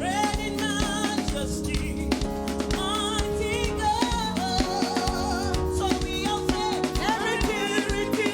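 Praise-and-worship music: a singer holding wavering, vibrato notes over a band with a drum kit keeping a steady beat.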